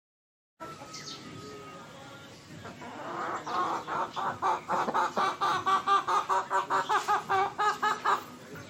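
Desi chicken clucking in a fast, even run of about five clucks a second, beginning about three seconds in and stopping near the end.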